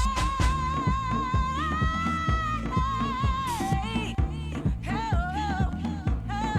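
Deep house dance track: a steady four-on-the-floor kick drum at about two beats a second under a long, held sung vocal line that wavers and glides between notes.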